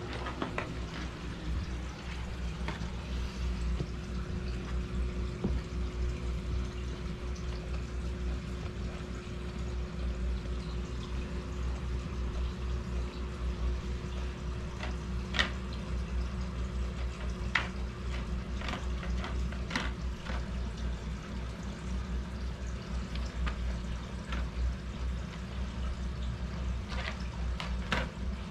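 Basset hound gnawing and licking a bone, wet smacking with a few sharp clicks scattered through, over a steady low hum.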